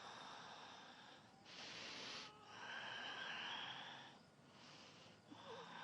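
Faint breathing picked up close on a lavalier microphone: a series of breaths in and out, each lasting about half a second to a second and a half, with short pauses between them.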